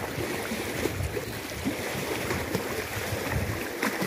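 Choppy dam water lapping and splashing around a wading angler's legs, a steady watery wash with an uneven low rumble of wind on the microphone.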